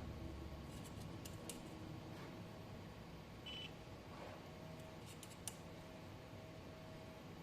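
Faint workbench sounds: a few small clicks and taps of tools being handled, and one short high beep about three and a half seconds in, over the steady hum of 3D printers running in the room.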